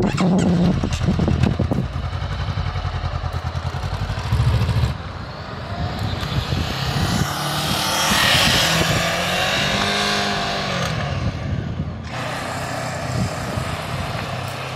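Motorcycle engine pulling away, then running at a steady engine speed held by a homemade throttle lock while the bike rides past hands-free; the sound swells as it passes close, about eight seconds in, and then fades.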